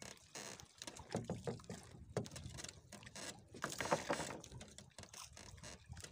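Water lapping against the hull of a small outrigger fishing boat, with scattered irregular knocks and rustles.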